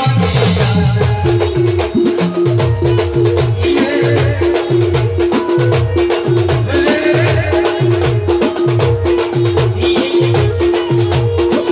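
Loud live Adivasi band music in the 'tur' style: a drum pad beats a fast, even rhythm of drum hits that fall in pitch, with rattling high ticks over a repeated held note, and men sing into microphones.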